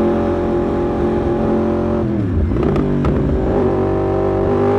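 Yamaha YZF-R1M's crossplane inline-four (CP4) running under way through an Akrapovic exhaust: a steady engine note that drops in pitch about two seconds in as the throttle closes, then picks back up and holds.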